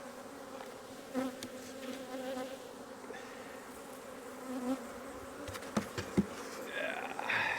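Honeybees buzzing around the open hives, a steady hum, with a few short sharp clicks or knocks about a second in and again around six seconds in.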